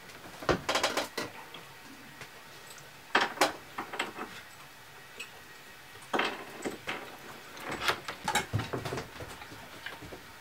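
Light clatter and knocks of tableware on a kitchen table as boiled potatoes are taken from a plastic bowl, in four short clusters a couple of seconds apart; the second is the loudest.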